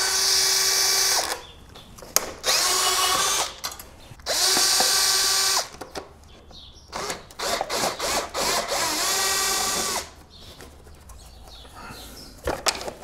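Cordless power driver spinning out the scooter's fan shroud fasteners (two 8 mm bolts and two Phillips screws) in four separate runs of a steady whine, each about a second or two long and rising at the start and falling off at the end. Small clicks and handling sounds come between the runs.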